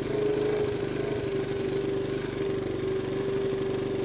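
Small motorcycle engine running at a steady fast idle, its pitch settling slightly early on and then holding. The owner says the idle is revving too hard and needs turning down, and that it won't hold steady for long before the engine dies.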